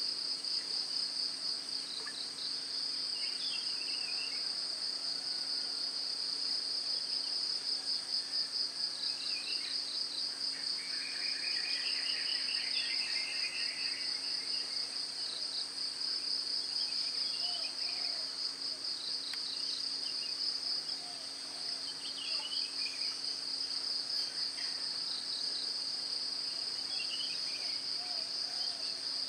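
Steady chorus of insects, a high, rapidly pulsing buzz, over a faint low hum. Scattered short chirps come through it, with a longer twittering run around the middle.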